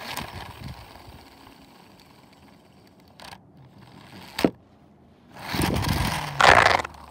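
A plastic toy helicopter is handled and scraped across a tile floor close to the microphone. There is one sharp knock about four and a half seconds in and a louder stretch of scraping near the end.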